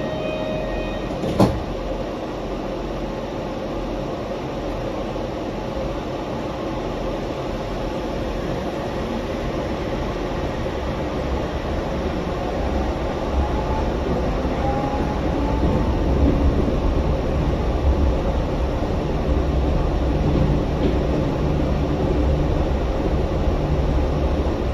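Yurikamome rubber-tyred automated train running along its guideway, with a steady rumble from the tyres and one sharp click about a second and a half in. From about halfway in, the traction motors' whine rises in pitch and the rumble grows louder as the train picks up speed.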